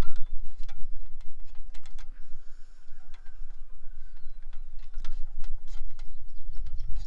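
Footsteps on dry ground: a string of irregular light clicks and crunches, over a low rumble.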